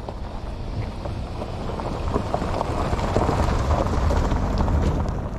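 SUV driving slowly over a loose gravel shore, tyres crunching and popping on the stones over a low engine and road rumble. It grows louder as the SUV comes close to the microphone.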